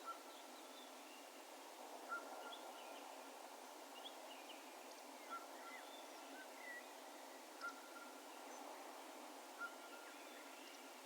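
Faint, echoing bird calls from a distance: one bird repeats a short, clear note about every two seconds, each trailing off in an echo, while other birds chirp faintly, over a steady low rural hiss.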